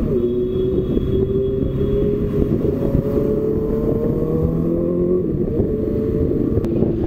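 Motorcycle engines running under way in traffic, heard from the rider's seat over road and wind noise. The engine pitch climbs slowly for about five seconds, then shifts and steadies near the end.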